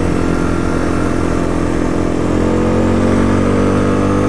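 1997 Yamaha Big Bear 350 ATV's single-cylinder four-stroke engine held at full throttle as the quad speeds up, its pitch climbing slowly in the second half.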